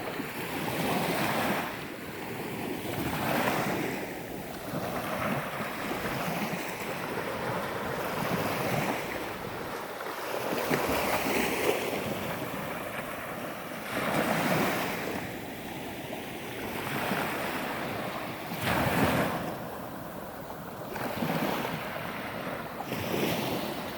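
Waves washing onto a sandy beach, swelling and falling back every few seconds, with wind buffeting the microphone.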